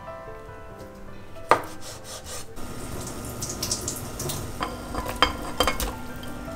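Soft piano music, then a sharp clack about one and a half seconds in. Water boiling in a stainless saucepan follows, with several clinks and knocks near the end as hot dogs and asparagus are slid off a ceramic plate into the pan.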